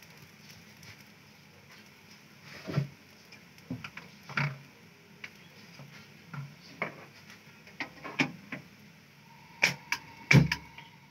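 Shami kababs shallow-frying in a little oil on a flat tawa: the oil pops and crackles irregularly, with a cluster of louder pops near the end.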